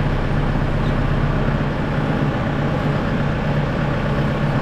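Kubota M6060 tractor's four-cylinder diesel engine running at a steady speed.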